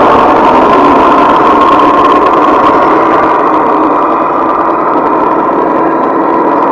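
Steady motor whine of a 1/10-scale RC Defender 90 crawler driving slowly over rock, holding an even pitch throughout.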